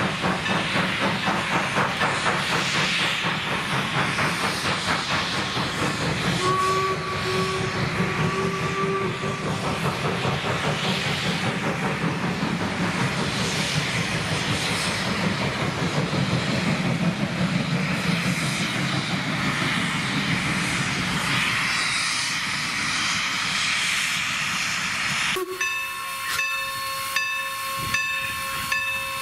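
A steam-hauled train of wooden passenger coaches rolling past, a dense steady clatter of wheels on the rails, with a steam whistle blowing once for about three seconds. Near the end it changes abruptly to the Baldwin 4-8-0 steam locomotive close up, hissing steam with a steady whine.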